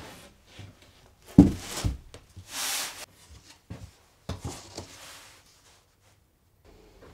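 Wooden boards being handled and set down on a workbench. A plywood sheet lands with a thump and a second knock about a second and a half in, a short scraping rub follows, and a few more knocks come as a long guide rail is laid on top.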